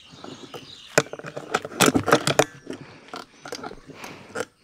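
Close rustling with a string of sharp knocks and clicks, the loudest cluster about two seconds in.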